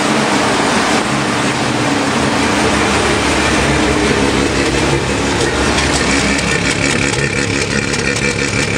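Freshly rebuilt Mazda 12A twin-rotor rotary engine of an 1984 RX-7 idling steadily while it warms up, its choke partly on. The exhaust note comes through fuller and deeper in the last few seconds.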